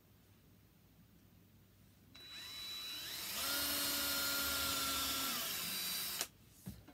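Cordless drill spinning up about two seconds in, its whine rising in pitch and then holding steady as it bores a small pilot hole through the wood board, before stopping abruptly near the end.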